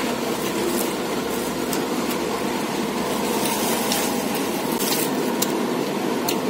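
A steady engine-like running noise, like a motor vehicle idling, with a few faint short clicks over it.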